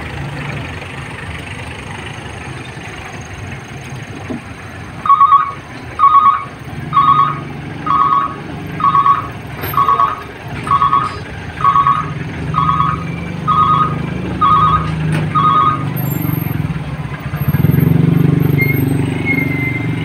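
Small pickup truck engine running, with a reversing alarm beeping about a dozen times, roughly once a second. The engine gets louder near the end.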